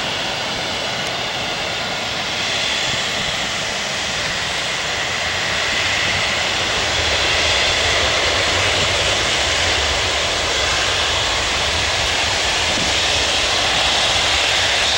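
Jet engine noise from a Boeing 737's twin turbofans as the airliner rolls out after landing: a steady rushing rumble that grows a little louder about six seconds in.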